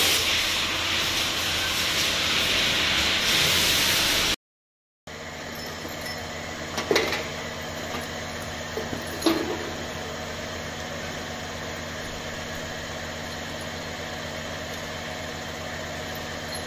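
A steady rushing hiss that cuts off suddenly. Then a steady machine hum, with two sharp metal clinks a couple of seconds apart from hand tools and parts on a stripped-down engine cylinder head.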